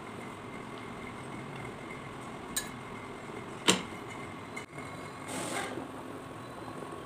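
Kitchen utensils clacking: a light click, then about a second later a sharp, louder clack like a steel knife set down on the wooden cutting board, over a steady faint hum. Near the end a short rush of hissing from a pot of boiling potatoes as its lid is lifted.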